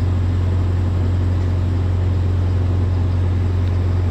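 An engine running steadily, a low even drone that does not change.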